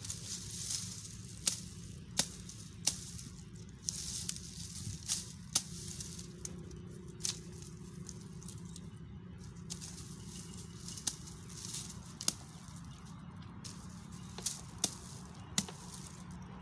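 Small hand axe chopping dry shrub branches: about a dozen sharp, irregular knocks and snaps, with the dry crackling rustle of twigs being pulled and handled in between.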